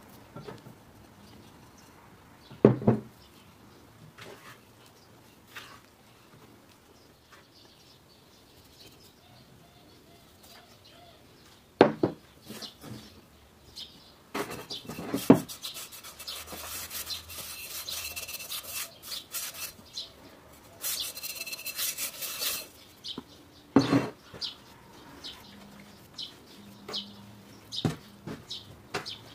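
Dough being made by hand: a silicone spatula scrapes a sticky flour-and-water dough around a ceramic bowl, then the dough is handled and kneaded on a floured wooden table. Rubbing and rustling run through the middle, with several sharp knocks spread through.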